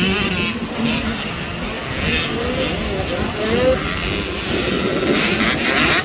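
Youth 85cc motocross dirt bikes racing on a dirt track, several two-stroke engines at once revving up and dropping back as the riders accelerate out of the turns.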